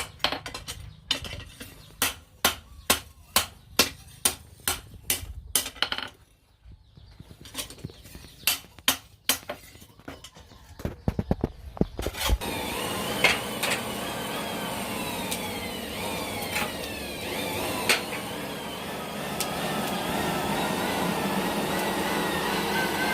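A hammer striking metal in a run of sharp blows, about two a second, with a short pause and then a quicker flurry. About halfway through, a power tool starts and runs steadily, its whine wavering up and down.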